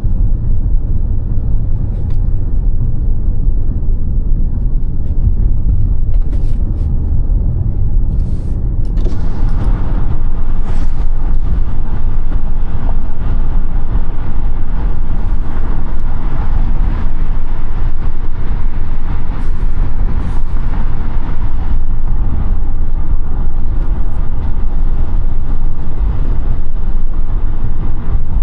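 Audi A5 8T driving on the road: a steady low rumble of engine and road, with tyre and wind noise growing louder about nine seconds in and staying up.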